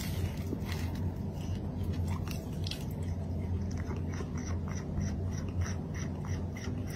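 Close-up chewing: crisp, irregular crunches over a low steady hum.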